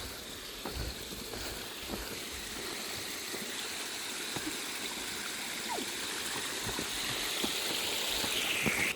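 Water rushing in a stream or irrigation channel, a steady hiss that grows slowly louder.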